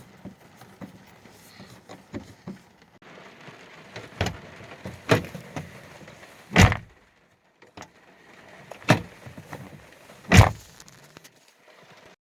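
Five sharp knocks and clunks from a car door's interior handle and trim being worked by hand. The third and fifth knocks are the loudest.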